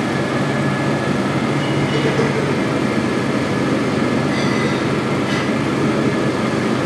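Steady ventilation fan noise, an even rushing with a low hum, with a few faint light clinks.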